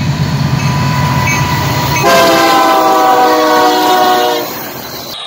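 Union Pacific diesel freight locomotives passing with a deep engine rumble. About two seconds in, the lead unit's air horn sounds several tones together for about two seconds, then stops.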